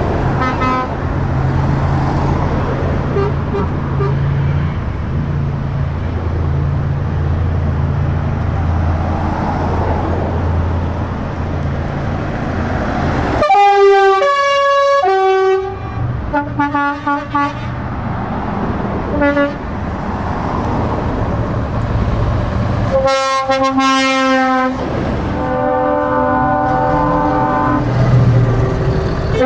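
Heavy truck engines running low and steady in slow traffic, then truck air horns blowing: a long horn that steps between notes about halfway through, a few short toots after it, and two more long blasts in the last several seconds.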